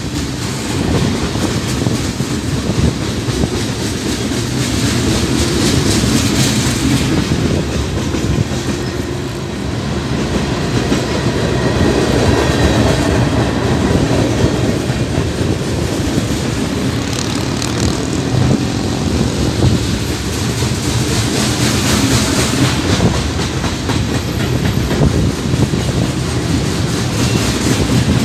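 Freight cars of a Union Pacific manifest train rolling past, a steady loud rumble with the wheels clicking over the rail joints.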